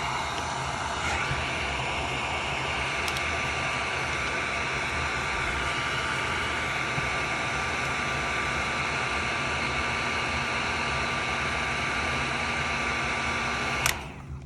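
Electric heat gun blowing steadily, shrinking heat-shrink tubing over a soldered connector, its fan giving a steady rush with a thin whine. It cuts off with a click near the end.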